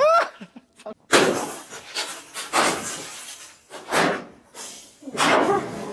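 Polypropylene walking-stick shillelagh striking an old flat-screen computer monitor again and again, sharp cracking blows on its plastic case and screen, the first about a second in.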